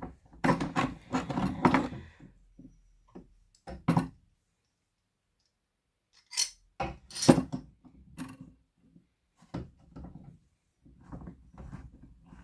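Workshop handling sounds: irregular clinks, knocks and scraping of metal and wood parts. They come in bursts, with a break of about two seconds near the middle and the sharpest knock a little after it.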